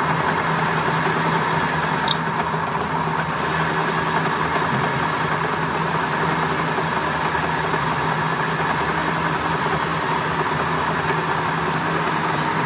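Metal lathe running steadily with a steady hum while a twist drill in the tailstock chuck bores into the end of a spinning metal bar.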